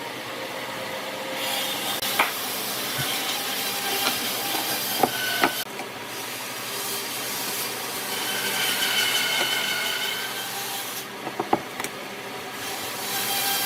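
Wood being worked by hand: a continuous rubbing or scraping on wood, with a few sharp knocks.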